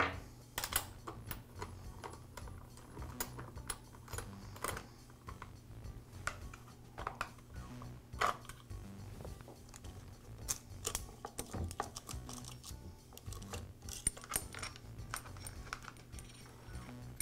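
Irregular light clicks, knocks and metallic clinks of chainsaw parts being handled: the Echo saw's plastic clutch cover pulled off and the saw chain lifted off the guide bar.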